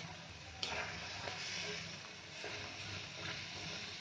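Tomato-onion pizza sauce sizzling and bubbling gently in a hot iron tawa, a steady soft hiss.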